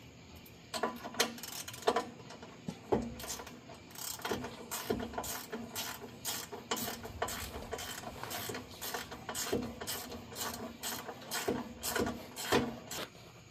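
Hand ratchet with a 14 mm socket clicking in quick repeated strokes, tightening the spring-loaded flange bolts of a car's axle-back exhaust.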